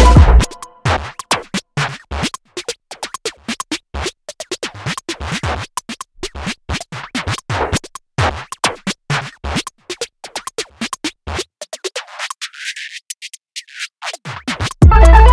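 Hot oil in a frying pan crackling and spitting in irregular sharp pops as marinated liver slices are laid into it. Background music cuts out about half a second in and comes back near the end.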